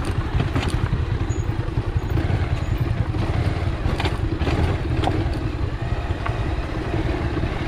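Motorcycle engine running steadily on a rough off-road track, with a few sharp clatters, most of them in the middle.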